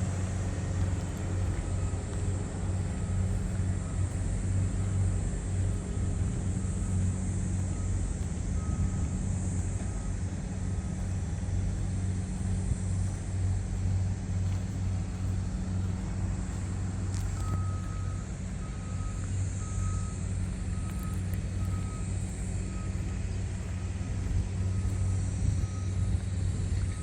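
Rice combine harvester's diesel engine running steadily, with a short electronic warning beep repeating a little more often than once a second, louder in the second half.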